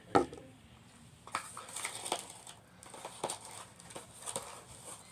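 Toy packaging being handled: a sharp click just after the start, then from about a second in, a run of light clicks, taps and rustles of plastic and card.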